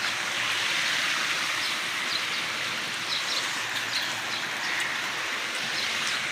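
Light rain falling steadily, with scattered individual drops ticking over the even hiss.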